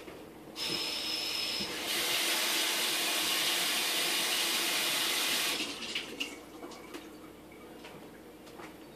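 Water running from a tap as a steady hiss: it starts about half a second in, gets louder about two seconds in and is shut off suddenly about five and a half seconds in, followed by a few light clicks.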